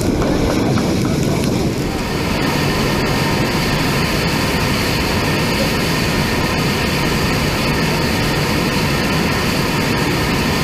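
Ethanol and liquid-oxygen rocket engine firing on a static test stand: a loud, steady roar that holds without a break, the sound of a sustained burn.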